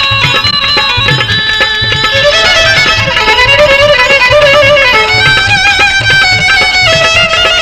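Instrumental break in a Gujarati folk song: a held, wavering lead melody over a steady drum rhythm.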